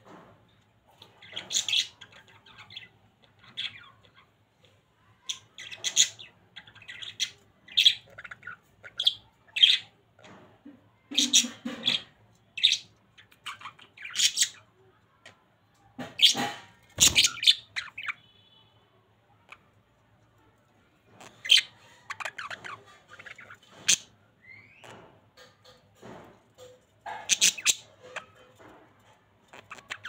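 Budgerigars chirping and giving harsh squawks in short calls on and off, with a quiet spell of a few seconds after the middle.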